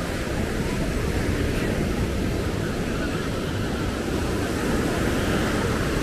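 Steady outdoor ambience with a constant low rumble and no single event standing out, with some voices in it.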